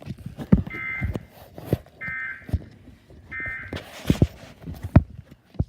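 Emergency Alert System end-of-message data tones: three short bursts of warbling digital tones, about a second and a half apart. Louder irregular sharp knocks fall throughout.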